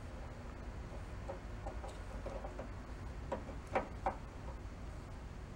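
Faint small clicks and taps as multimeter test probes are pressed against a plastic rocker switch and its wires are handled, three sharper clicks a little past halfway, over a low steady hum.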